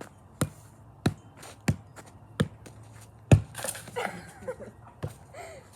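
A ball bouncing in sharp, evenly spaced thuds, about one and a half a second, the fifth and loudest just over three seconds in.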